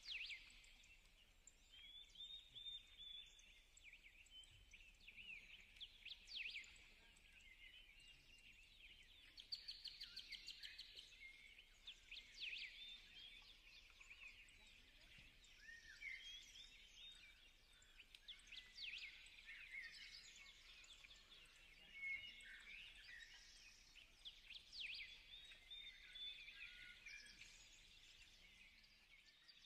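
Faint small-bird chirping and song: many quick rising and falling chirps and short trills, with a fast even trill of about ten notes a second near the middle.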